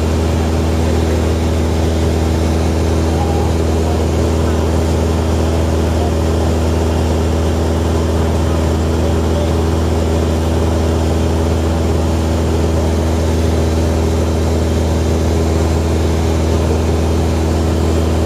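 Steady drone of a small plane's engine and propeller heard inside the cabin in cruising flight: a low hum with a few steady tones over a constant rushing noise.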